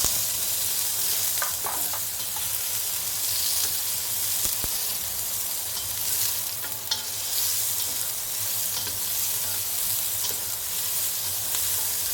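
Chopped onions, garlic and ginger sizzling steadily as they sauté in hot oil in a pan, with a few light clicks as they are stirred.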